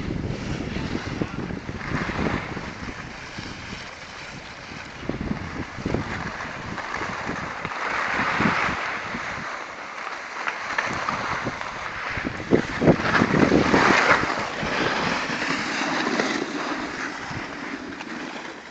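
Skis sliding and scraping over packed snow, with wind rushing over the microphone. The scraping swells louder twice, about halfway through and again near the three-quarter mark, with scattered small knocks.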